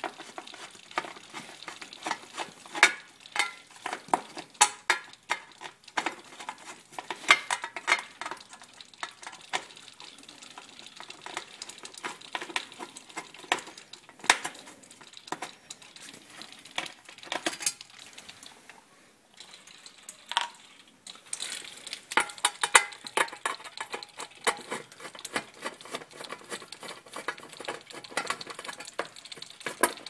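A screwdriver backing out the screws of an electric water heater's lower access cover: a long run of small metallic clicks, ticks and scrapes, briefly quieter about two-thirds of the way through.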